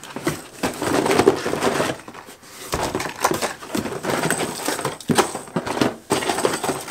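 Rigid clear-plastic clamshell packs of Googan Squad Scout jerkbaits being handled: irregular crinkling, crackling and clacking as they are taken out of a cardboard box and set down one after another.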